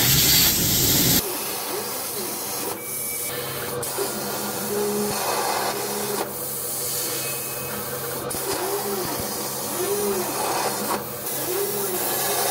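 CNC plasma cutter torch cutting steel plate: a steady hiss of the arc and air, loudest for the first second or so. Under it runs a low steady hum, and near the end a whine rises and falls a few times.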